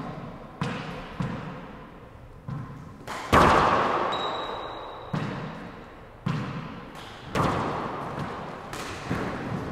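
Four-wall handball in play: a hard rubber handball is slapped by hand and smacks off the court's walls and floor, each hit ringing with a long echo in the enclosed court. About a dozen hits come at irregular intervals, the loudest about three and a half seconds in.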